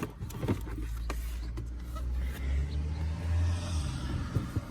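Items being pulled out of a car's glove box: rustling of papers and plastic with scattered light clicks and knocks, over a steady low hum.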